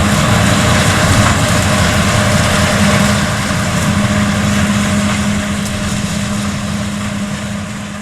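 Tractor engine and tractor-drawn bean harvesting machinery running steadily in the field: a dense, even machine noise with a constant low hum, starting to fade out near the end.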